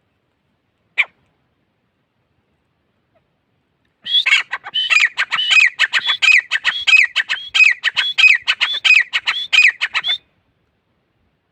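Gray francolin calling: a single sharp note about a second in, then a fast run of loud, repeated notes at about three a second for some six seconds, stopping abruptly.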